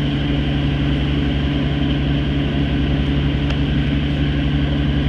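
Fishing boat's engine running steadily: a low, even drone with a fast pulse.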